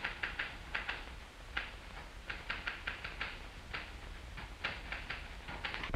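Manual desk typewriter being typed on: irregular runs of sharp keystroke clacks, a few per second, with short pauses between runs.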